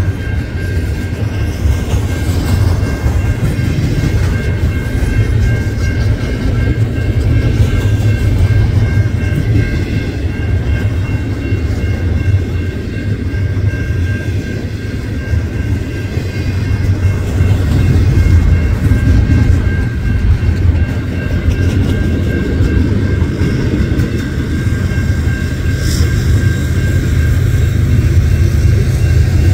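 A long container freight train rolling past: a steady heavy rumble of steel wheels on rail, with a faint steady high whine over it, getting a little louder past the middle.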